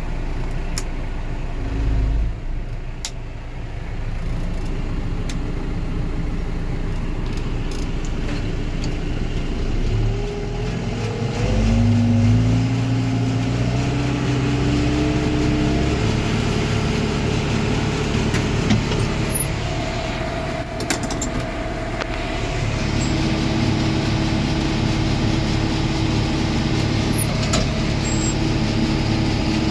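Tractor engine running with a pull-type forage harvester, revving up from about ten seconds in with a rising pitch, then running steadily at higher speed from about twenty-three seconds in. This is the machine being brought back up to speed after a plug was cleared.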